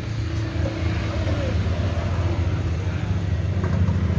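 Small petrol engine driving a Richi KD 350 rice and corn grinding mill, running with a steady low hum that grows louder near the end.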